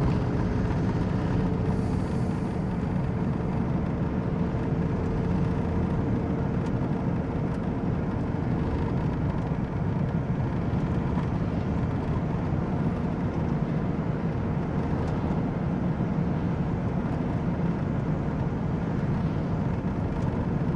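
A van driving at steady speed on a road, heard from inside the cab: a steady drone of engine and tyre noise, with a faint steady whine.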